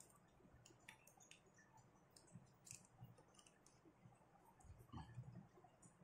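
Near silence broken by faint, scattered clicks of a small screwdriver and metal parts as a spinning reel is taken apart, with a few soft knocks about five seconds in.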